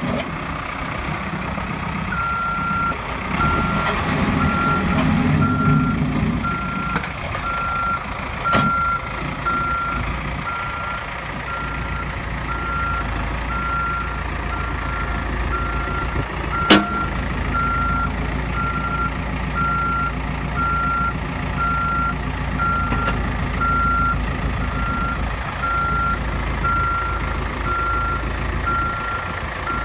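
2006 CAT 420E backhoe loader's diesel engine running while its backup alarm beeps about once a second as it reverses. Two sharp clanks are heard, one near nine seconds and one near seventeen.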